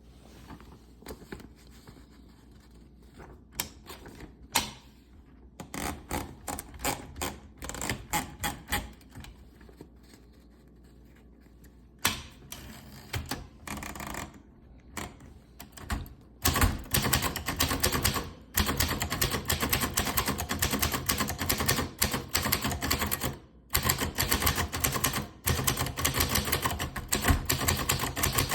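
1948 Olympia Elite manual typewriter being typed on. It starts with scattered, irregular keystrokes, then about halfway through breaks into a fast, steady run of keystrokes with a short pause near the end.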